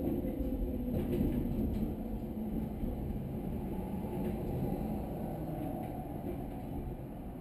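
Wellington suburban electric multiple-unit train running along the track, a steady low rumble heard from the driver's cab, easing off slightly towards the end.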